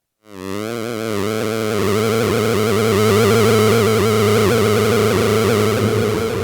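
Make Noise Strega synthesizer drone, driven by control voltages and run through an Eventide H9 effects pedal: a steady low tone under wavering, warbling upper tones that swells in at the very start.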